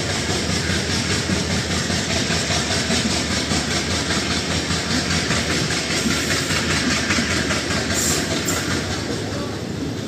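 WDG3A diesel locomotive chugging steadily as it pulls an express train away from a station under heavy acceleration. Two brief high-pitched hisses come about eight seconds in.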